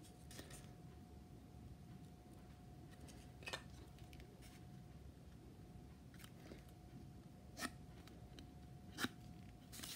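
Near silence with a faint steady hum, broken by three brief light clicks as foam board and a pen are handled on a cutting mat.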